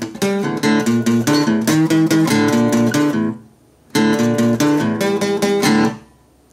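Acoustic guitar strummed in a quick, even rhythm of chords. It breaks off for about half a second just past the middle, comes back, then stops near the end, leaving faint room tone.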